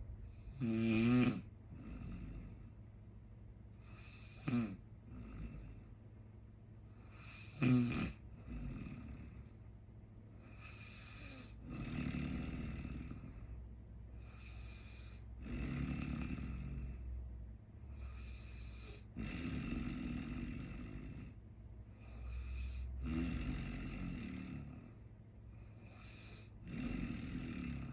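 A man snoring in his sleep. Three short, sharp, vibrating snores in the first eight seconds are the loudest, then longer, breathier snores follow about every four seconds.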